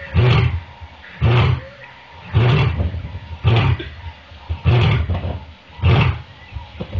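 Recording of a lion roaring, played back: a run of short, deep roars, about one a second, six in all.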